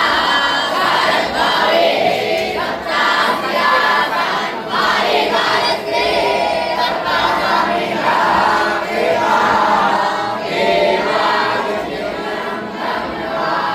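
Many voices chanting together in a continuous group recitation.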